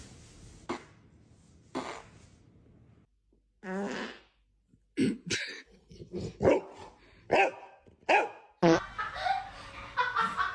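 A fart a few seconds in, followed by a dog barking in a string of short, sharp barks.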